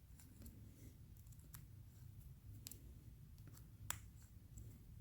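A few faint, scattered clicks and light taps of a small hex key and metal parts being handled while the slip ring's connector is worked loose, over a low steady hum.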